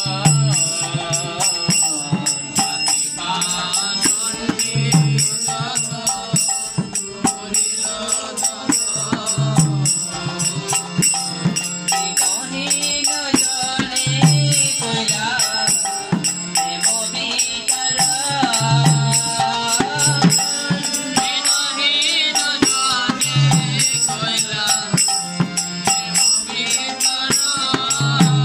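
Bengali devotional kirtan: a man singing the lead line, accompanied by karatals (small brass hand cymbals) chiming on every beat and a khol (Bengali clay mridanga drum), whose deep bass stroke lands about every four and a half seconds.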